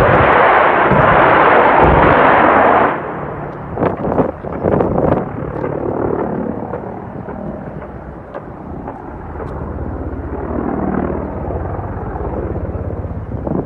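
A loud rushing blast of noise for about three seconds, then a few sharp bangs, then the steady drone of a helicopter's engines and rotor.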